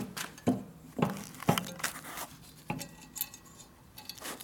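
Sharp metal clinks from a C-clamp valve spring compressor being worked on a Harley-Davidson shovelhead cylinder head, compressing the valve springs to free the valve keepers. Four clinks come about half a second apart, then one more after a pause and another at the end.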